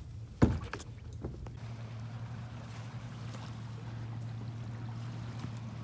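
A sharp knock about half a second in, typical of a plastic kayak hull being bumped as someone steps across, followed by a couple of lighter knocks; then a steady low hum with a faint wash of noise.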